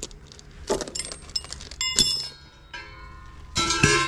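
Metal parts being handled: several clinks and knocks, the sharpest about two seconds in and a louder cluster near the end, each leaving a brief metallic ring. These come from the tractor's steel front grill and hand tools being moved and set down.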